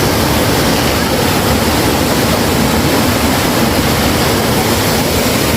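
Waterfall pouring down, a loud, steady rush of water with no change throughout.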